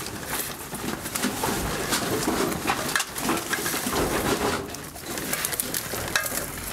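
A dove cooing repeatedly, over short knocks and rattles of scrap metal being handled and loaded into a van.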